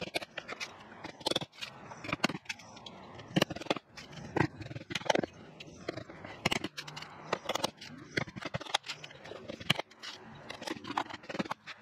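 Claw hammer driving brass nails into two glued sheets of plywood: a run of sharp, irregular strikes with short pauses between them.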